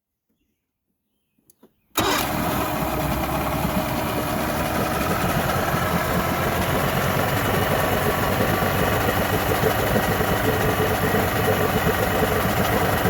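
A 1990s 40 hp Mariner outboard motor comes in abruptly about two seconds in and runs steadily. It is being run to test whether its water pump now moves cooling water after the passages were blown clear with compressed air.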